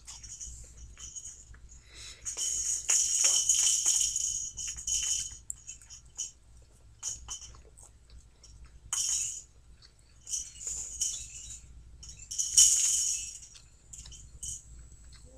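Crinkly rustling in several separate bursts, the loudest and longest about two seconds in and another near the end, as a fish sandwich is handled and pulled apart while eating.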